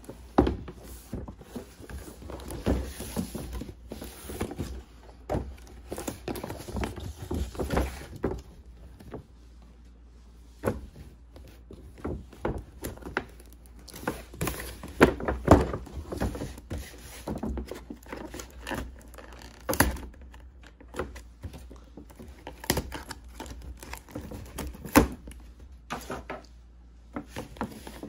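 A cardboard toy box with a clear plastic window being handled and opened by hand: irregular knocks and thumps as it is turned and its flaps and tape are picked at.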